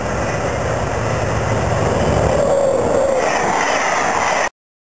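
CC 72000 diesel-electric locomotive passing close at speed hauling X 4750 railcars: a loud low engine rumble that gives way to the rolling noise of the cars. The sound cuts off suddenly near the end.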